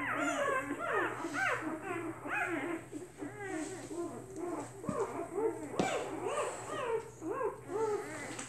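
A litter of newborn puppies squeaking and whimpering, many short high cries overlapping without a break.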